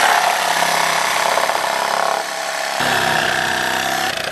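Reciprocating saw running steadily as its blade cuts through a painted wooden board; the sound shifts a little about three seconds in.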